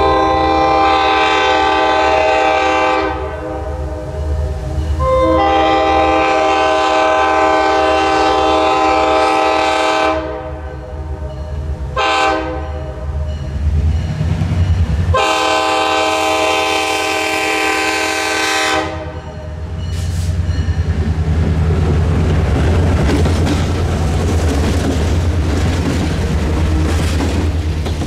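Diesel locomotive's multi-tone air horn sounding the grade-crossing signal, two long blasts, a short one and a final long one, over the low drone of its engine. After the last blast, the locomotive and its passenger cars roll past with a steady rumble and the clack of wheels over the rail joints.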